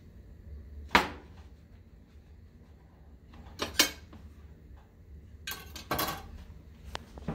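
Paper towels rustling and crumpling as raw whole snapper are patted dry on a cutting board, with a few sharp knocks and clatters, the loudest about a second in.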